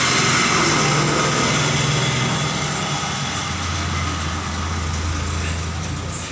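A bus driving past, its engine running steadily with a low hum under a broad hiss.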